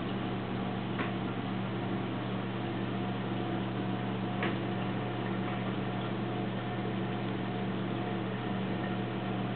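Steady low hum of reef aquarium equipment, the circulation and return pumps running, over an even wash of noise. Two faint ticks, about a second in and about four and a half seconds in.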